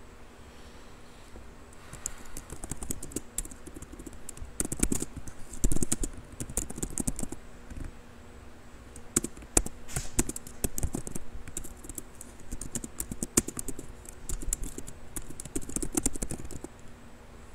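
Irregular typing and clicking on a computer keyboard, in short flurries of keystrokes that start about two seconds in and stop shortly before the end.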